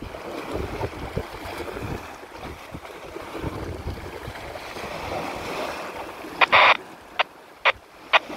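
Wind buffeting the microphone with a steady outdoor rush. About six seconds in, a short loud burst and then a few brief clicks from a handheld radio scanner's speaker.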